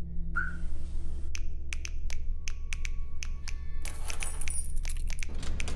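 A run of sharp, irregular clicks over a steady low hum, with a brief hissing rush about four seconds in.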